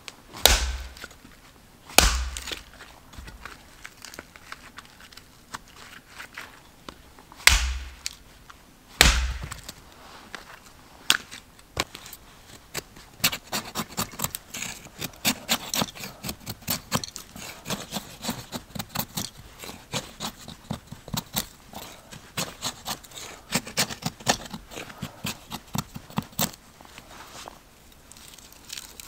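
Hatchet chopping into firewood on a chopping log: four heavy strikes, two near the start and two about eight and nine seconds in. From about thirteen seconds a long run of quick, light cracks and scrapes as kindling is worked by hand.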